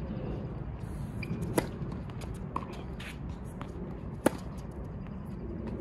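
Tennis rally: sharp pops of a tennis ball struck by rackets, two loud ones about two and a half seconds apart with fainter hits and bounces between, over a steady outdoor background hiss.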